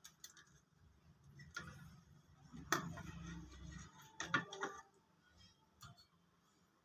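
A few faint, sharp clicks and taps, about five in all, the loudest near the middle: a new USB data socket being fitted into a printer circuit board and its metal pins bent into place.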